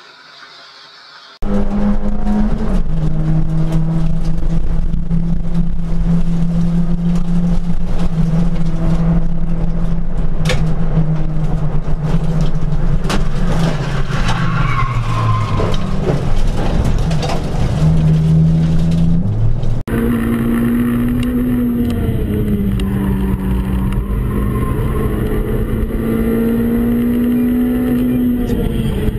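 Race car engines heard from inside the cabin. After a quiet first second and a half, a Nissan Micra race car's engine runs loud and steady at high revs, its pitch dropping at gear changes, with a few sharp clicks and knocks in the middle. About 20 seconds in, the sound cuts abruptly to another car's engine, rising and falling in pitch.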